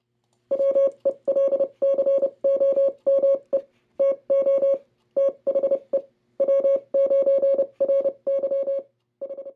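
Intro sound of a single electronic tone, always at the same pitch, beeped on and off in short and long runs in the manner of Morse code.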